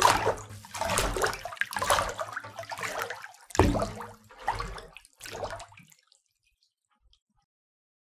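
Water splashing and pouring in uneven surges, stopping suddenly about six seconds in; silence after.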